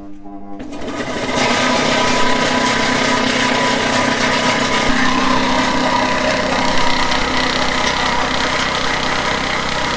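Homemade apple grinder running: an electric motor spins a bent steel blade in a bowl, chopping whole apples into pulp. Steady motor hum under the noise of apple pieces being thrown about the bowl, building over the first second or so and then holding steady.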